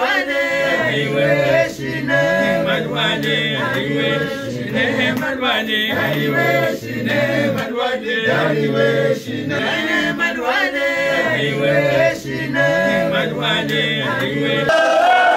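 A group of voices singing a Mouride Sufi devotional chant together, one short melodic phrase repeated over and over. Near the end the singing changes abruptly to a different passage.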